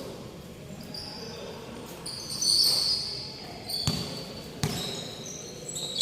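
Basketball game sounds in a gym: sneakers squeaking repeatedly on the hardwood court and a basketball bouncing, with two sharp thuds about four seconds in.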